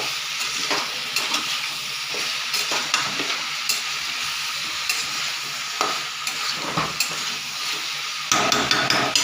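Vegetable pieces (drumstick, potato, brinjal) sizzling as they fry in oil in a kadai, with the utensil clicking and scraping against the pan as they are stirred. The stirring gets louder near the end.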